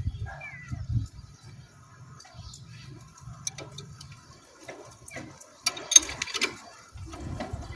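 Scattered light clicks and knocks of hand tools and brake parts being handled during brake pad reassembly, with a short run of sharper metallic clinks about six seconds in.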